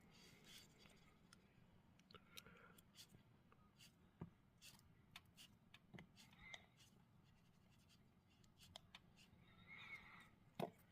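Near silence, with faint scattered clicks and a few soft knocks; the loudest knock comes near the end.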